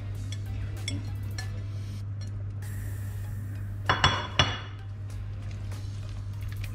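Kitchenware clinking at a stainless steel pot of soup: faint taps early on, then two or three sharp ringing clinks about four seconds in, over a steady low hum.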